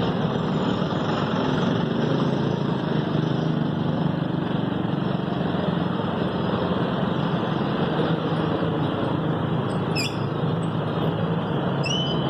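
Steady traffic noise of motor vehicle engines running. Brief high chirps come about ten seconds in and again near the end.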